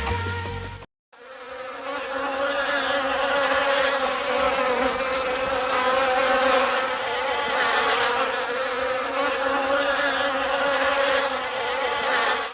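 Honey bees buzzing in a steady, unbroken drone, starting about a second in after a snatch of music cuts off.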